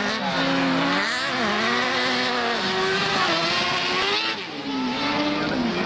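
Several autocross buggies racing on a dirt track, their engines revving up and down through gear changes. The sound briefly drops about four seconds in.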